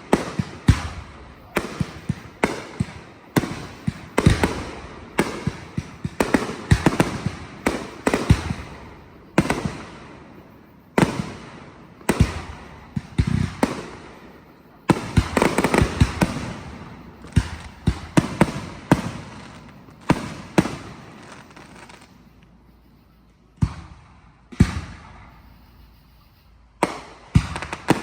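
Fireworks going off: a string of sharp bangs, often several a second, each with a decaying echo, packed into a dense barrage about halfway through, easing off briefly, then picking up again with a few more bangs near the end.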